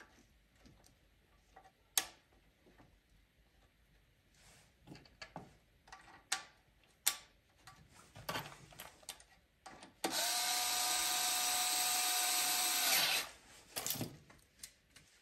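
Small clicks and knocks of plastic wiring connectors being handled on a generator's alternator. About ten seconds in, a loud, steady whirring sound with a held tone starts abruptly, runs for about three seconds and stops, followed by a few more clicks.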